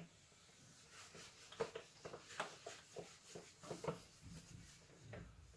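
Whiteboard eraser rubbing across a whiteboard in quick back-and-forth strokes, faint, about three strokes a second.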